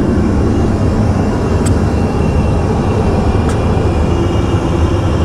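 Steady low rumble of an airliner's cabin noise, heard in the aircraft lavatory, with two faint clicks nearly two seconds apart.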